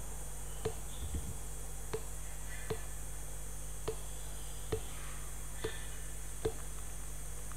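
Computer mouse clicking about seven times at roughly one-second intervals, each click placing a new anchor point with Illustrator's pen tool, over a steady low electrical hum and hiss.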